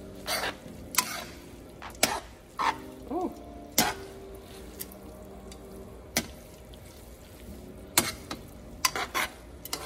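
A cooking utensil stirring noodles and sauce in a hot pan, with irregular sharp knocks and scrapes against the pan over a light sizzle.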